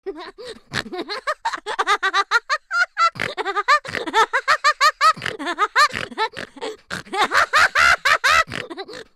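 Hearty laughter in rapid repeated bursts, several a second, with a couple of brief pauses for breath.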